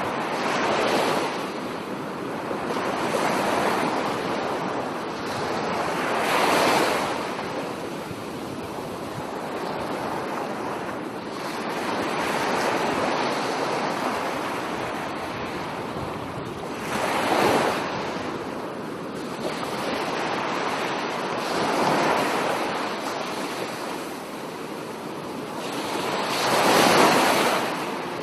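Sea surf washing onto the beach, waves breaking and swelling every few seconds, loudest about a quarter of the way in, again past halfway and just before the end, with some wind on the microphone.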